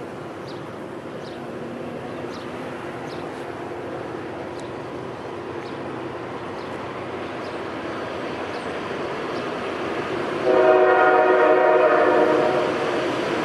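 A CSX GE C40-9W diesel locomotive approaches, its engine and the train's rumble growing steadily louder. About ten seconds in it sounds its multi-note air horn in one blast of about two seconds, a warning for the road crossing.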